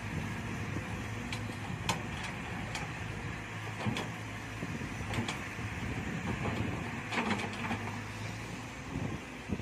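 Cat 312 hydraulic excavator's diesel engine running steadily under digging load. A few sharp knocks and clanks come from the bucket and arm as it scoops and swings wet mud.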